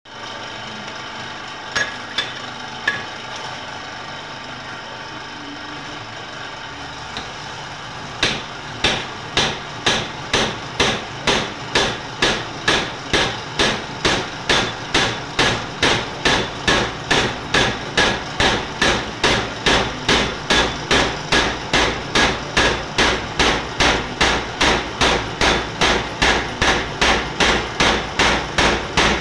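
Homemade power hammer running with a steady hum and a few metallic clicks, then from about eight seconds in striking steadily at about two blows a second. The ram is driving down on a glowing hot steel bar held in a crimping swage.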